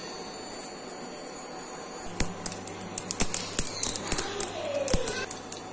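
Mustard seeds starting to splutter in hot oil in a kadhai. It is quiet for the first couple of seconds, then sharp pops and crackles come a few a second as the seeds begin to burst.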